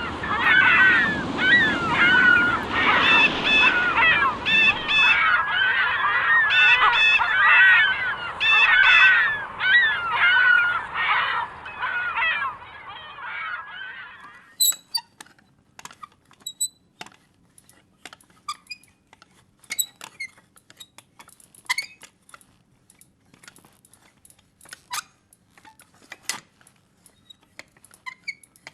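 A flock of waterfowl calling busily over one another, fading out about halfway through. Then come scattered, irregular sharp clicks and taps.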